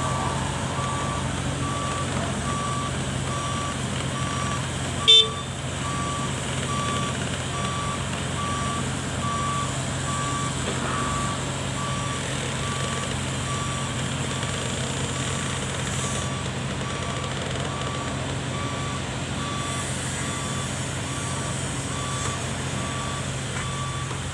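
Excavator's travel alarm beeping at an even, steady rate over the diesel engine's constant running hum, the warning that the machine is travelling. One short, sharp knock about five seconds in.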